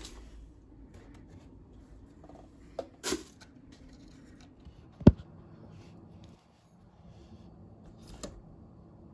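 Small handling noises as hands move little objects about a table: a few sharp clicks and taps, with one louder knock about five seconds in.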